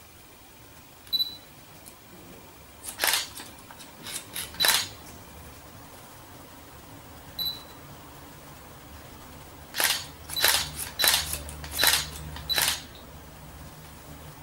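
Hairdressing scissors snipping through wet hair, each cut a short, sharp metallic click. A few scattered snips come in the first half, then a quick run of about six near the end.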